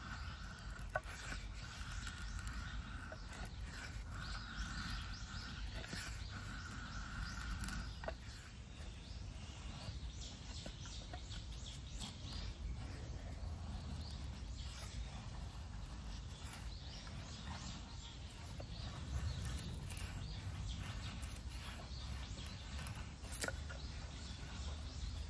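A knife shaving thin curls off a split piece of firewood to make a feather stick: a series of short, light scraping strokes. A steady high tone sounds in the background for the first eight seconds or so.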